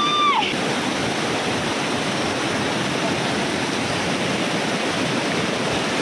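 Steady, even rush of running water. In the first half second a short high-pitched call, held and then falling, dies away.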